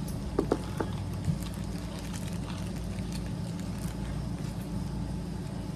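Steady low background hum, with a few light clicks and small handling noises in the first second and a half as the next haul item is taken out of its packaging.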